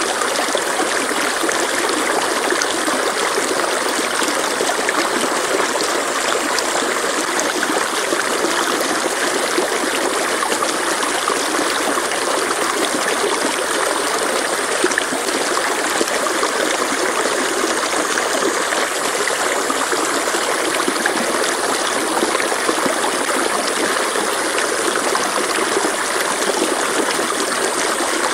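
Mountain stream flowing and trickling over rocks, a steady, unbroken rush of water.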